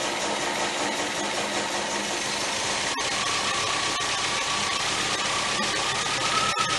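1977 MGB's 1.8-litre B-series four-cylinder engine running, a dense steady mechanical noise. A high whine joins about three seconds in and rises slightly in pitch near the end.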